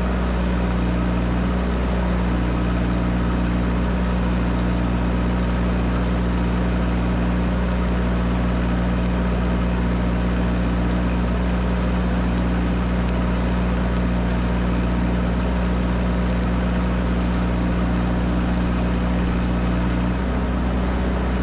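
Miller Big 40 engine-driven welder running steadily, with the crackle of stick welding over the engine.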